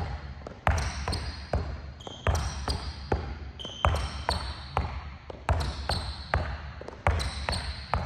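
Basketball being dribbled hard on a gym court in a steady rhythm, a strong bounce a little more than once a second with lighter ones between, mixed with short high squeaks of sneakers on the floor.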